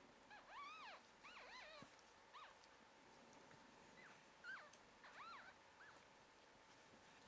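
Newborn puppies squeaking and whimpering: short, faint, high-pitched cries that rise and fall in pitch, coming in quick clusters in the first couple of seconds and again around the middle.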